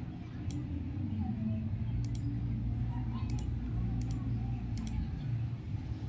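Sharp clicks of a laptop's pointer button: a single click, then four quick pairs like double-clicks, over a steady low background rumble.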